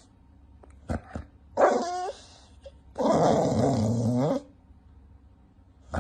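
A dog making two growling, grumbling vocal sounds with wavering pitch: a short one about one and a half seconds in, then a longer one of about a second and a half. A sharp click comes just before them.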